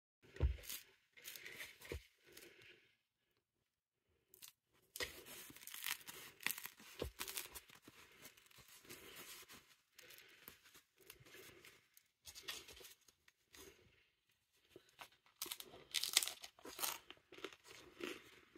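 A crusty loaf of bread being broken and torn apart by hand, its crisp crust crackling and crunching in irregular bursts. The crackling is loudest a couple of seconds before the end.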